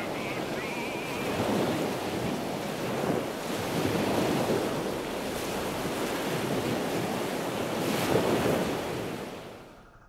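Sea surf: waves washing and breaking in slow, repeated swells, fading away near the end.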